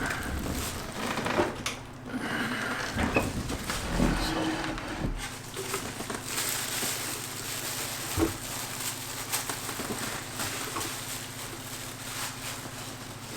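Hands handling and opening a memory card's packaging: crinkling plastic or card, rustling and scattered clicks, over a steady low hum.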